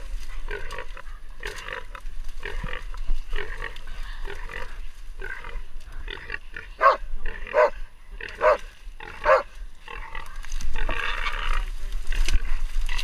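Caught hog squealing and grunting in short rhythmic bursts, about two a second, with four louder, higher squeals in the middle, about one a second.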